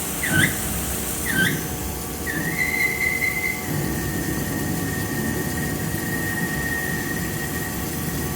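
CNC lathe boring bar cutting the bore with a high-pitched squeal. It starts as short chirps about once a second, then from about two seconds in becomes a steady whistle that drops slightly in pitch a second or so later, over the steady noise of the machine running.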